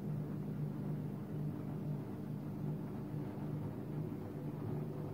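Countertop hard ice cream machine (batch freezer) running with a steady low mechanical hum while it pushes frozen ice cream out of its discharge chute.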